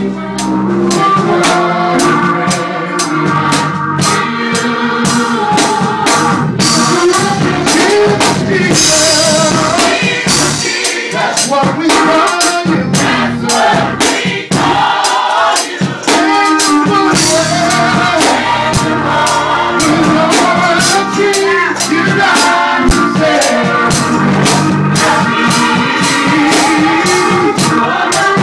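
Gospel choir singing a song together, backed by rhythmic drums and percussion.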